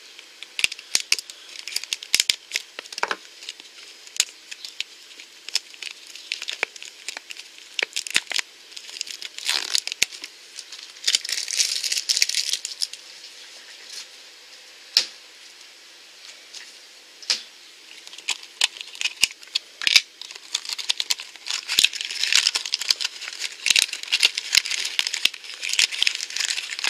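Plastic shrink-wrap being cut with a craft knife and peeled off a small toy blind-pack box, crinkling and tearing, with many sharp clicks and rattles from the hard plastic case being handled. Quieter for a few seconds in the middle, busiest near the end.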